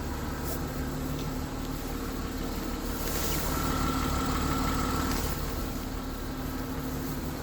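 Mercedes-Benz M272 V6 engine idling steadily, recorded for the ticking noise it makes. About halfway through it swells briefly with a higher whine and hiss, then settles back to idle.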